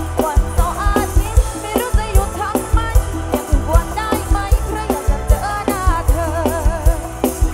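Live band playing a Thai song through a PA: a woman sings into a microphone, with wavering held notes in the second half, over a steady drum-kit beat, bass, keyboard and electric guitar.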